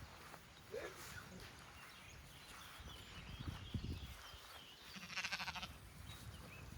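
Sheep and lambs at close range, with soft low thuds of movement and a brief call. Small birds chirp throughout, and a short buzzy rattle comes about five seconds in.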